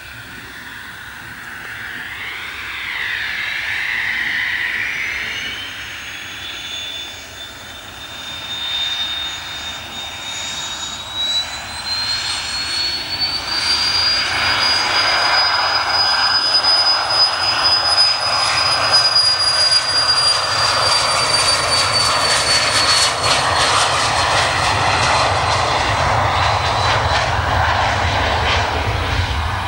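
Twin Pratt & Whitney Canada PW530A turbofans of a Cessna 550 Citation Bravo business jet spooling up to takeoff power. A high whine climbs in pitch in steps, then the sound grows louder into a broad roar as the jet accelerates on its takeoff roll.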